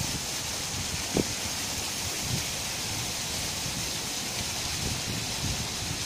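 Steady rush of water from a small rock cascade splashing into a pond, with wind rumbling on the microphone and a single knock about a second in.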